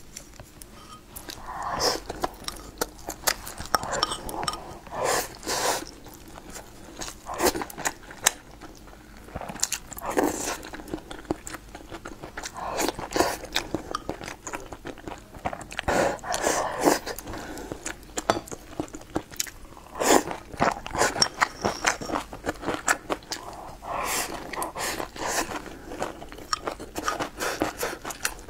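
Close-miked eating sounds: chewing and mouth noises of someone eating rice and stir-fried food, with irregular sharp clicks of chopsticks against a ceramic rice bowl.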